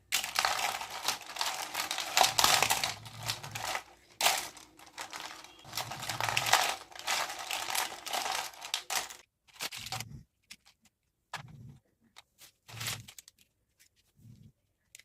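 Plastic toy pieces and packaging being handled: crinkling and rapid clattering, then from about nine seconds in only scattered clicks and taps.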